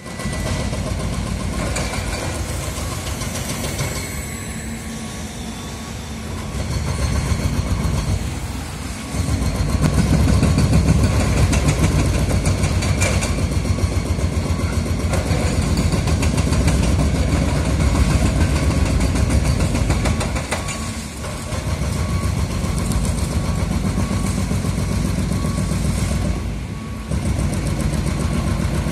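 Demolition excavators, a Volvo among them, working a concrete viaduct: heavy diesel engines run under load with a dense, low mechanical rumble that grows louder for about ten seconds through the middle and briefly drops away a few times. A faint repeating beep sounds throughout.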